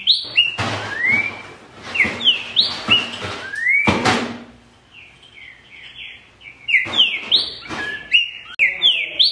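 Green-winged saltator (trinca-ferro, Saltator similis) singing phrases of short, loud, rising whistled notes, with a quieter pause mid-way and a few short rough noisy bursts among the phrases.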